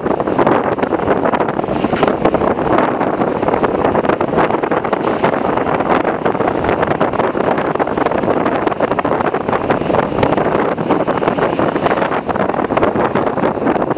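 Steady wind buffeting the microphone at the open window of a moving NS Sprinter (SGMm) electric multiple unit, over the train's running noise on the track.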